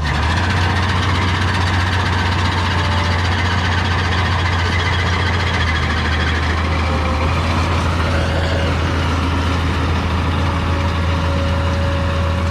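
Self-propelled hydrostatic swather's engine running steadily under way as the machine is test-driven after a makeshift repair to its steering-valve tie rod, a low hum with a broad mechanical rush over it.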